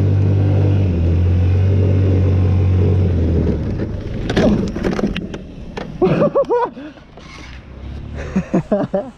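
A car engine drones steadily at high revs, heard from inside the cabin, then dies away about three and a half seconds in. After that come scattered knocks and a few short bursts of voices.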